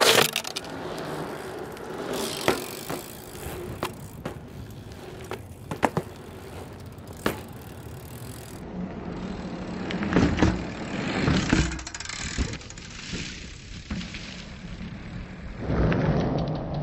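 BMX bike rolling on asphalt, with several sharp clacks and knocks from the tyres and frame as the bike is ridden and landed. The rolling noise grows louder near the end.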